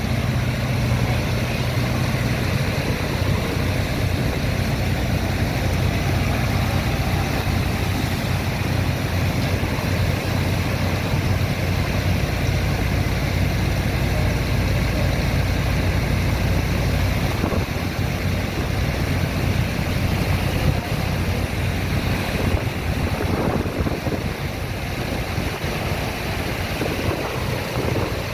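Sand dredger's engine running steadily with a low hum, over rushing water and wind on the microphone. The hum eases somewhat in the second half.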